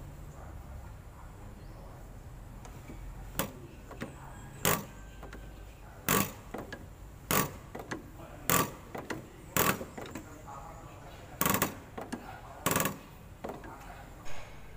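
Diesel injector nozzle being pop-tested on a hand-lever nozzle tester after cleaning, spraying fuel in short, sharp bursts about once a second as the lever is pumped.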